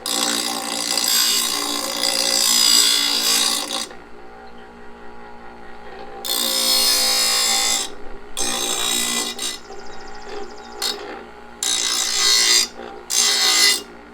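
Harbor Freight bench grinder running with a steady motor hum while something is pressed against the wheel in five grinding passes, the longest about four seconds at the start and the shortest under a second near the end.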